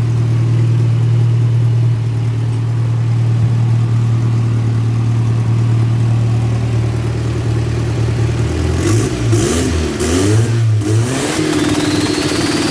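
Turbocharged VW AP four-cylinder engine of a Voyage idling steadily, slightly fast with the blow-off valve's vacuum line removed. About nine seconds in it is revved in several blips to try for turbo flutter, and a faint high whistle rises near the end.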